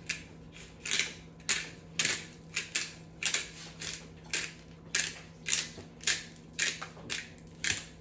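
Pepper grinder being twisted over and over, crunching peppercorns in short gritty strokes about two a second.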